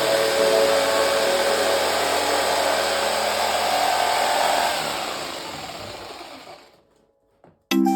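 A small electric motor-driven machine running with an even, airy noise and a steady hum, then switched off about four and a half seconds in, its pitch falling as it winds down to a stop.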